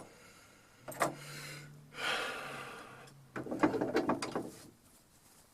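Metal tools and parts handled at a workbench: a click, a short low hum with a scrubbing noise, then a clattering rattle of metal that stops about a second before the end.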